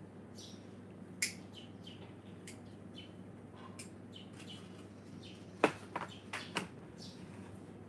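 Small birds chirping in short, scattered calls. A sharp click sounds about a second in, and a quick run of louder clicks comes about three-quarters through.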